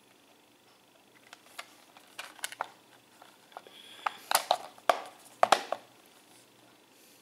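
Plastic Blu-ray case being handled: a scatter of light clicks and knocks as the multi-disc case is closed and turned over, ending in a cluster of louder sharp clacks about four to six seconds in.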